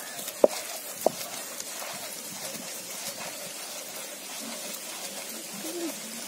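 Hand-turned stone grinder (aattukal) grinding soaked chana dal without water: the stone roller turns in the stone mortar with a steady rough, gritty noise and scattered small ticks. There are two sharp knocks about half a second and a second in.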